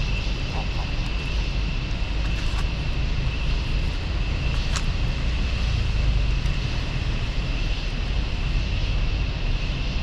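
Steady low rumble of outdoor background noise with a thin, steady high-pitched tone over it, and a single faint click about five seconds in.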